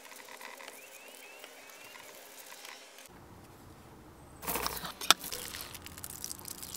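Soft rustling of a large flour tortilla burrito being rolled and handled by hand on a wooden cutting board. About four and a half seconds in comes louder crinkling of aluminium foil wrapped around it, with one sharp snap near five seconds.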